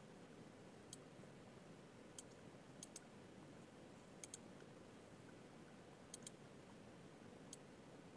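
Faint computer mouse clicks, several single ones and some in quick pairs, spread a second or so apart over a low hiss of room tone.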